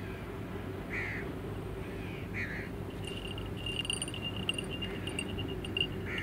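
Crows cawing, a few short harsh calls spaced a second or more apart. A high, steady chirping trill comes in about halfway through. A low, steady hum runs underneath.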